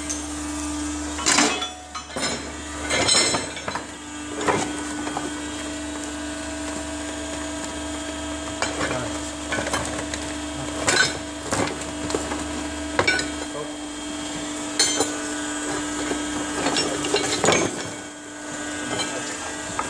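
Steady hum of a WIROP 300S hydraulic wire rope swaging press running. Metal clinks and knocks come now and then as galvanized steel wire rope slings and shackles are handled against it.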